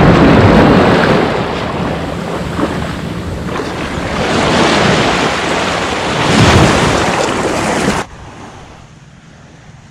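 Small waves washing in over shallow sand close to the microphone: a loud rushing swash that swells twice, with wind buffeting the microphone. About eight seconds in it drops suddenly to a faint, distant wash of surf.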